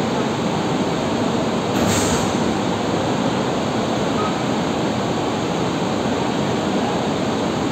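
Steady, dense machinery roar of a hydro powerhouse hall, with no distinct tone or rhythm, and a brief hiss about two seconds in.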